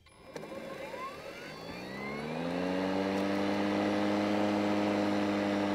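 Kobalt 40V Max brushless 20-inch mower's blade motor starting up: a rising whine over about two and a half seconds that levels off into a steady hum as the blade reaches full speed.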